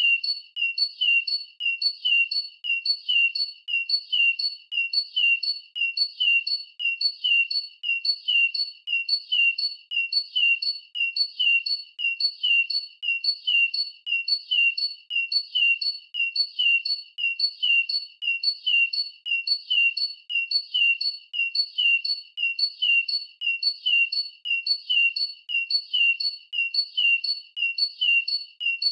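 Bird chirp sound effect: one short, high chirp repeated at an even pace of about two a second, unchanging, like a looped call.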